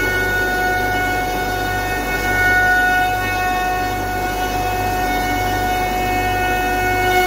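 SCM three-axis CNC overhead router running with its head traversing, giving a steady high-pitched whine over a low machine hum.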